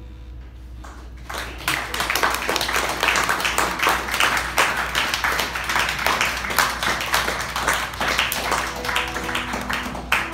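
The last guzheng note fades, then an audience breaks into applause about a second in: dense, steady clapping.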